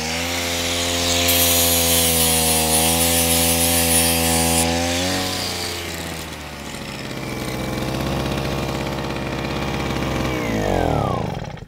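Weldinger G1000 two-stroke inverter generator running with an 850 W angle grinder plugged in and spinning. The grinder is switched off about five seconds in and the generator runs on alone. Near the end the generator is switched off and winds down, its pitch falling until it stops.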